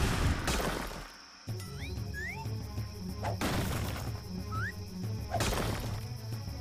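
Cartoon action soundtrack: background music with a steady beat, cut through by three whooshing hit effects and a few short rising chirps.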